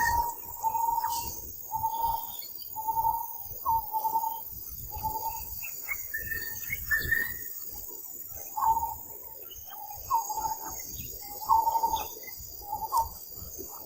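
Insects buzzing at a single steady pitch, broken here into short repeated phrases, with occasional bird chirps and low rustling.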